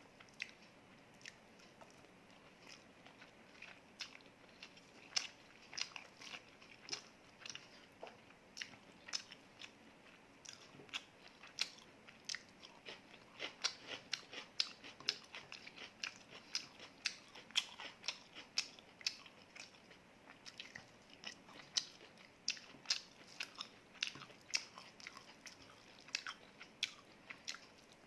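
Close-miked eating: a person biting and chewing food, with many sharp crunches, thickest and loudest in the middle stretch.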